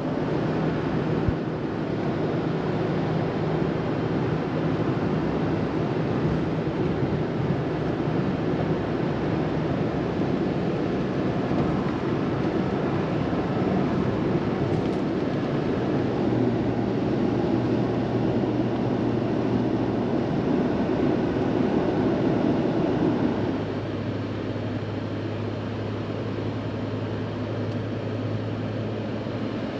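Road and engine noise inside a moving car: a steady rush with a low engine hum. The hum changes pitch about halfway through and drops again a few seconds later, after which it is slightly quieter.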